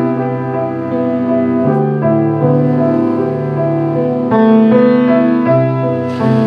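Slow instrumental piano music, held chords changing every second or two, with a fuller, brighter chord a little after four seconds in.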